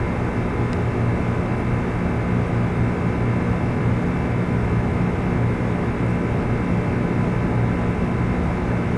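Steady mechanical drone with a low hum and faint higher steady tones.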